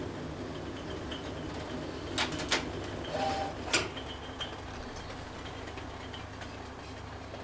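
A few sharp metallic clicks and clinks as a gas stove burner is switched off and a gooseneck kettle is lifted from the burner grate, over a steady low background hiss.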